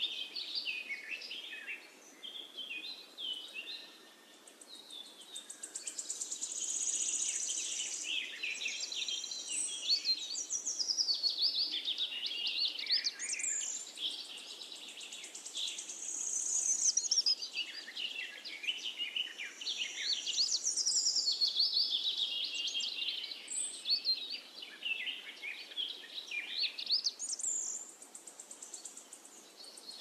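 Small songbirds chirping and twittering in quick, high overlapping notes, with a few brief lulls.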